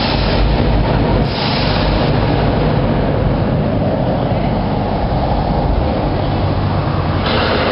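Loud, steady rumbling noise with a heavy deep low end and a hiss over it.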